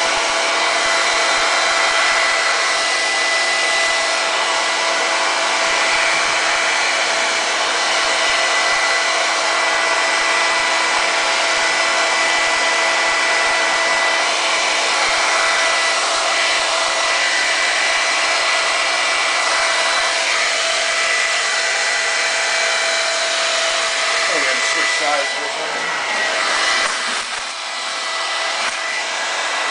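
Handheld hair dryer blowing steadily, heating a vinyl sticker on a motorcycle fairing to soften its adhesive for peeling. The sound dips and wavers briefly near the end.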